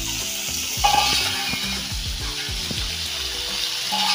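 Small whole fish sizzling steadily in hot oil in a metal kadai as they are half-fried, with a louder burst of sizzle about a second in. Background music plays underneath.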